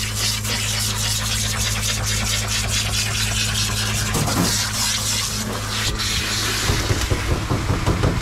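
Water spraying hard from a grooming bath's hand-held nozzle onto a wet dog's coat, a steady hiss over the steady hum of the bath's pump motor. Irregular thumps come in over the last second or two.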